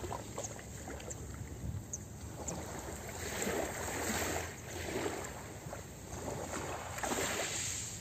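Small waves lapping onto a pebble shore, the wash swelling and falling back every second or two, with a few faint clicks of pebbles.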